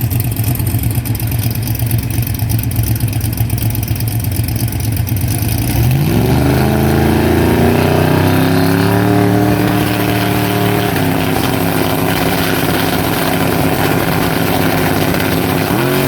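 A car engine running at a low, steady rumble, then revving up about six seconds in and pulling hard with a rising pitch that holds. About eleven seconds in the pitch steps down like a gear change before continuing, and it rises again near the end.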